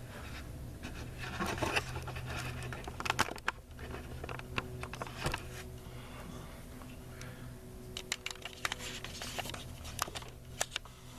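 Hands working on a garage door opener's wiring and circuit board: scattered clicks, taps and scratching of handled plastic and wires, over a low steady hum in the first few seconds.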